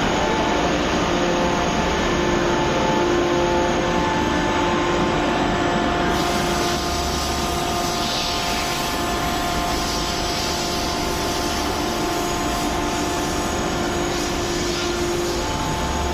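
1200-ton open-die hydraulic forging press running: a steady mechanical hum with several held tones over a noisy hiss, which turns brighter about six seconds in.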